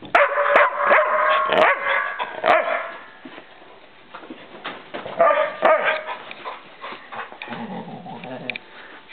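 Dogs at play, barking, yipping and whining over a tug toy, loudest in the first three seconds and again around five seconds in.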